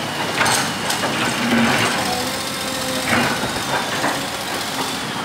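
Komatsu PC200 hydraulic excavator's diesel engine running steadily while the bucket digs, with a few short knocks and scrapes of soil and broken paving against the bucket.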